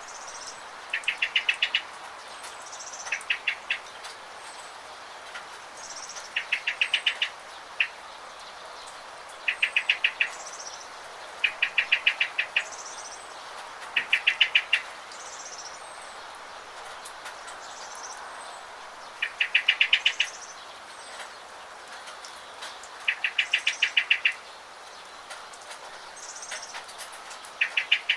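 A songbird repeating a short, rapid trill of about eight notes every two to three seconds, with thin, higher chirps between the trills, over a steady hiss of rain.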